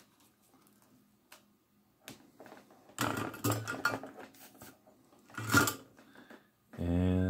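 Small clicks and handling noises of a soldering iron, wire and clip being moved about on a cardboard-covered bench. Two louder, brief rustling noises come in the second half.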